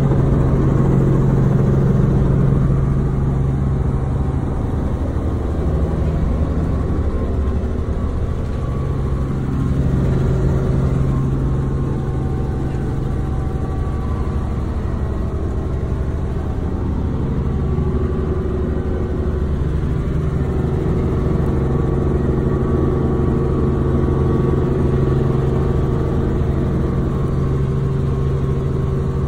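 Helicopter in flight heard from inside the cabin: steady, loud engine and rotor noise with a strong low hum.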